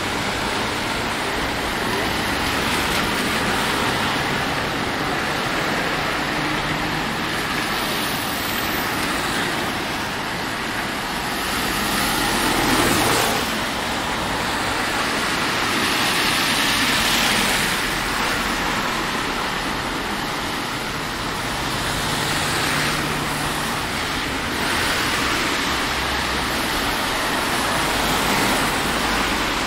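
Steady rain mixed with traffic on wet streets, the hiss swelling several times as vehicles pass.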